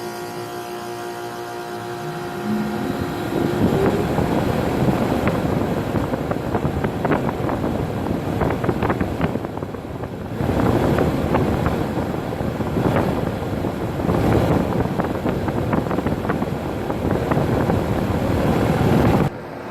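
Ruud 16 SEER air conditioner's outdoor condensing unit starting up: a rising hum as it comes up to speed a few seconds in, then the condenser fan and scroll compressor running loudly with gusty rushing air. The sound drops off abruptly near the end.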